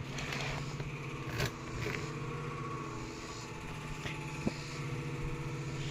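A steady low mechanical hum, like a motor or engine running, with a couple of light clicks.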